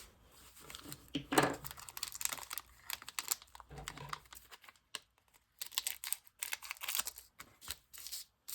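Trading-card pack wrapper being torn open and crinkled by hand, with the cards handled: an irregular run of crackling rustles and small clicks.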